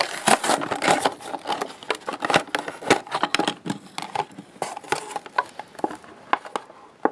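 Cardboard and clear plastic blister packaging of a toy monster truck being pulled apart by hand: irregular crinkles, clicks and rustles.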